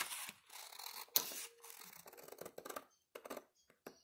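Scissors cutting through a cardstock file folder: a run of separate, crisp snips with short pauses between them.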